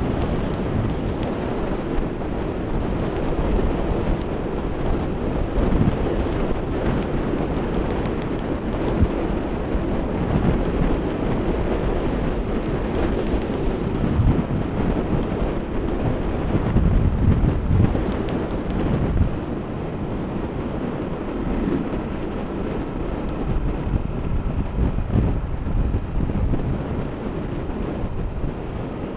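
Heavy wind buffeting on the microphone of a camera riding on a moving motorcycle: a steady, dense low rumble with road and vehicle noise underneath.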